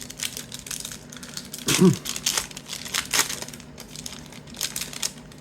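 Crinkling and rustling of a trading-card pack's wrapper being torn open and handled, in short irregular crackles, the loudest about two seconds in.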